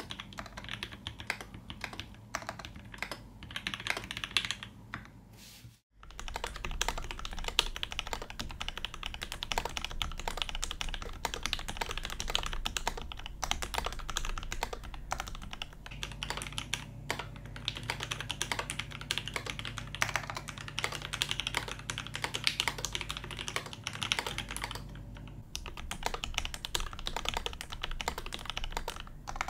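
Fast, continuous typing on a polycarbonate-cased TGR Alice custom mechanical keyboard: a dense stream of keystroke clacks. About six seconds in the sound cuts out for a moment. The typing then resumes as picked up through a HyperX microphone, with a faint low hum underneath.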